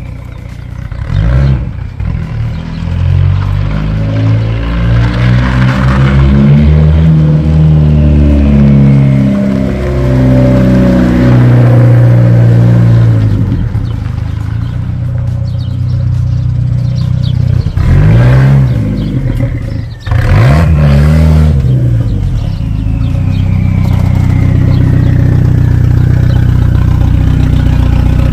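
Volvo 240-series two-door's engine accelerating, its pitch climbing and dropping several times, then two quick rev blips, then running at a steady note near the end.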